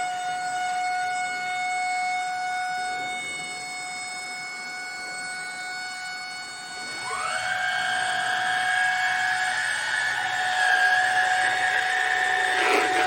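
Cordless upright vacuum cleaner's motor whining steadily. About seven seconds in, a second, louder whine rises quickly in pitch and holds, as a motor spinning up to speed.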